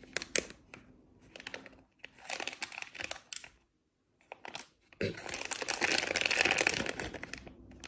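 Plastic pouch crinkling as it is handled and opened, in several short bursts, then a longer, louder stretch of crinkling in the last few seconds.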